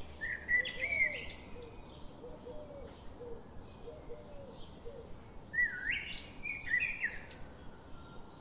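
Songbirds calling: two chirping phrases with quick rising sweeps, about a second in and again near six seconds, with softer, lower call notes repeated in between.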